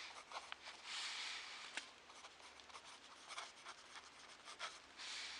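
Pen writing on ruled notebook paper: faint scratching in short strokes, with a few light ticks as the tip meets the page.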